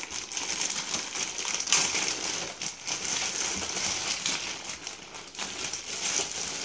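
Clear plastic packing bag crinkling and rustling continuously as hands work it open and peel it off a camera, with scattered sharper crackles.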